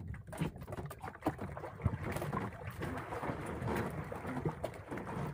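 Sea water splashing and swishing as a wooden paddle is pulled through it from the bow of a small outrigger canoe. There are a few light knocks in the first second or so, then a steady rushing of water.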